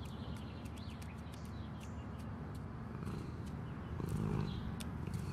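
A cat purring: a low steady rumble that swells a little about four seconds in.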